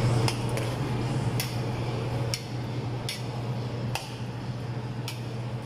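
A metal stirring utensil clinking and scraping against the side of a large metal pot while a big batch of pork in sauce is stirred, with about seven sharp clinks at uneven intervals. Under it runs a steady low hum.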